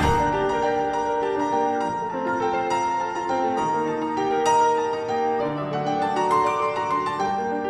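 Background piano music: a gentle melody of single notes over a few lower notes, in a moderate tempo.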